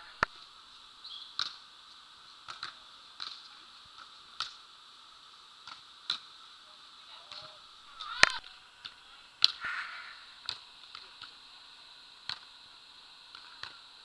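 Volleyballs being struck by hands on indoor sand courts: sharp slaps at irregular intervals, about a dozen, each with a short echo under the dome, the loudest about eight seconds in.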